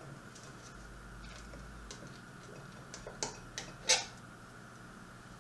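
Light clicks and knocks of plastic tubing being worked out of a mason jar's lid, with a few sharper knocks around three to four seconds in, the loudest just before four seconds.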